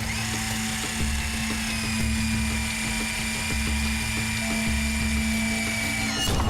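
A steady high-pitched whine over background music with a regular low beat; the whine swoops up at the start and drops away near the end.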